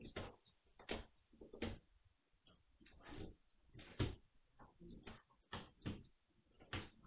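Irregular knocks and rattles from a metal wire puppy pen, about one or two a second, as eight-week-old Magyar Vizsla puppies chew and push at the fence.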